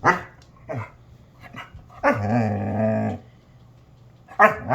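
Basset hound vocalizing: short barky sounds at the start, then one long wavering low-pitched bark-howl of about a second, then another starting near the end.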